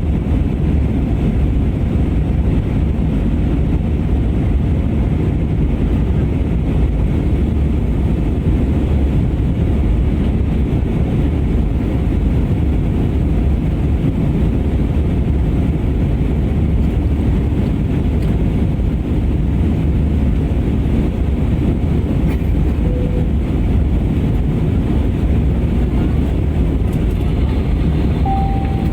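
Steady jet airliner cabin noise in flight: an even, loud rumble of engines and airflow, heaviest in the low end. Near the end a short single tone sounds, typical of a cabin chime.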